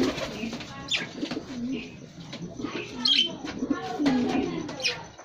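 Domestic pigeons cooing repeatedly in a loft, low warbling calls overlapping one another, with a few short high chirps about a second, three seconds and five seconds in.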